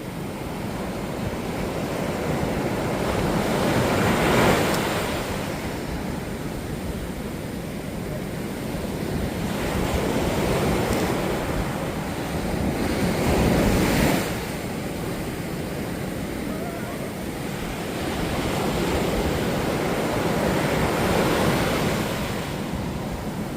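Ocean surf: high waves breaking and washing up the beach, a steady rush that swells into several surges, the loudest about four and fourteen seconds in and again near the end.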